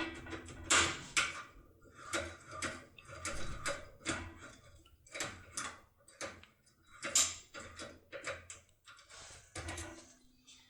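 Locksmith's impression tool being worked in a pin-tumbler lock cylinder: a series of irregular metallic clicks and short scrapes, one or two a second.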